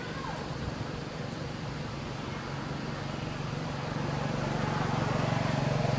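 A motor vehicle engine running steadily in the background, its low hum growing louder about four seconds in.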